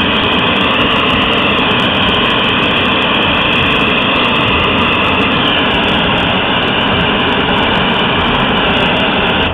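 Hand-held gas torch flame blowing steadily on hot glass to spot-heat a glass sculpture: a loud, even rush that cuts off suddenly at the end.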